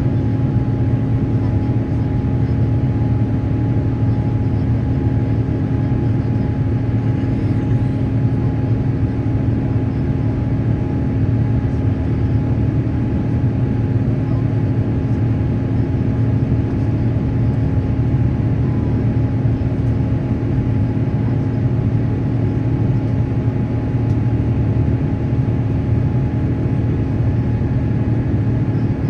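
Steady cabin noise of an Airbus A350-900 in its climb: the low drone of the Rolls-Royce Trent XWB turbofans and the rush of airflow, with a few faint steady tones held over it, heard from inside the cabin.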